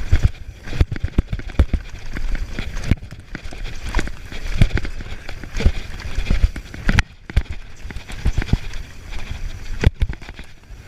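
Mountain bike on a downhill run: frequent irregular knocks and rattles as it bounces over rough ground, over constant tyre and wind rumble on the microphone.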